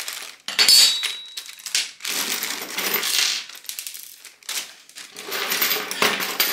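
Loose metal hardware (screws, washers, brackets and steel clamps) clinking and jingling in irregular bursts as it is shaken out of a plastic bag onto a wooden table, with the bag crinkling.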